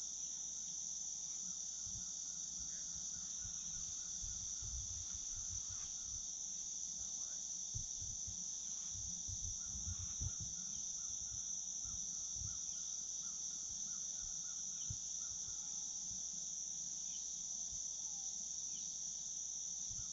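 A steady, high-pitched chorus of insects that goes on without a break, with a few soft low thumps in the middle.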